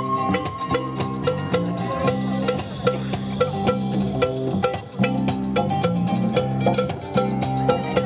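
Live Latin band playing a dance number: plucked guitar lines and bass over congas and a drum kit, with a steady beat.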